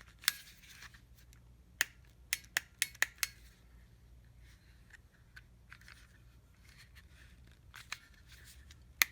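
Sharp plastic clicks from the controls of a Bernzomatic butane soldering torch being worked by hand while it is still unfuelled, so no flame or gas hiss. About six clicks come in the first few seconds, then a pause, then a few more near the end.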